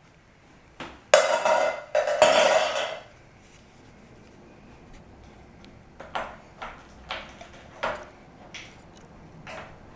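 Two loud tearing rips, about a second each, of velcro toy fruit halves being pulled apart, followed from about the middle onward by a series of light taps, roughly two a second, of a toy knife on a cutting board.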